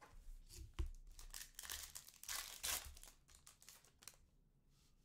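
Foil trading-card pack being torn open, its wrapper crinkling as the cards are pulled out. There is a soft knock under a second in, and the crinkling is loudest in the middle before dying away near the end.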